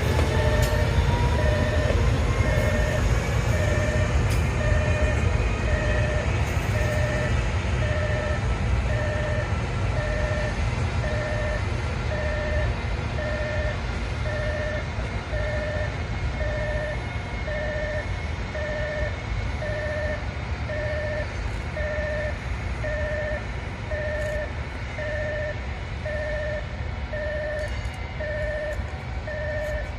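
EF510 electric locomotive running with a steady low rumble that slowly fades, and a faint rising inverter tone at the start. Over it an electronic two-pitch beep repeats about once a second.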